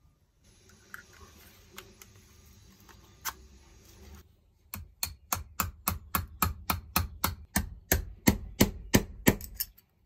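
Steady run of hammer blows on an old steel padlock, about four sharp metallic strikes a second, growing louder and quickening near the end, knocking the back plate off the seized lock. Quiet handling and a few light clicks come before the hammering.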